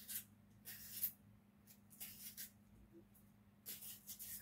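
A small knife slicing a sweet pepper held in the hand: about five short, faint, crisp scraping cuts at irregular intervals, over a low steady hum.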